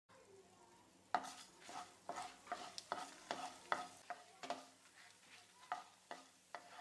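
A spatula stirring coriander seeds and dried red chillies in a little oil in a nonstick pan, roasting the spices. It makes a run of short, quiet scraping strokes, roughly two a second, starting about a second in.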